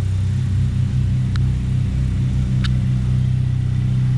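Turbocharged Volkswagen Golf engine idling steadily at a raised idle, which the owners put down to a vacuum hose cut and teed for a homemade turbo-flutter setup, or to the engine being cold. Two faint ticks sound over it.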